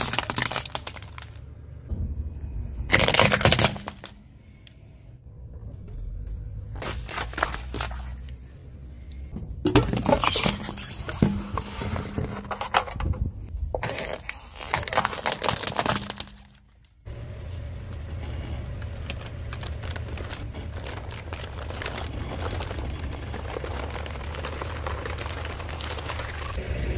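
Hard plastic toys cracking and crunching under a slowly rolling car tyre, in several bursts of snapping and crackling. A steady low rumble fills the last ten seconds.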